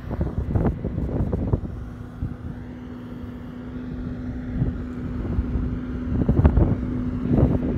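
Backhoe loader's diesel engine running, with a steady held tone coming in about one and a half seconds in as the machine works its hydraulics. Wind buffets the microphone in irregular gusts throughout.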